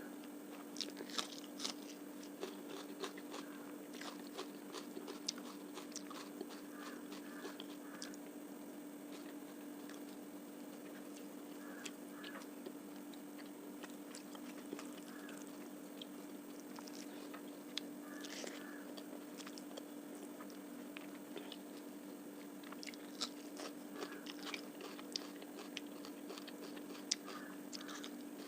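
Close-miked eating: a person chewing and biting into a meal of fish curry, rice and onion, with many short sharp clicks of mouth and bite sounds scattered irregularly throughout. A steady low hum runs underneath.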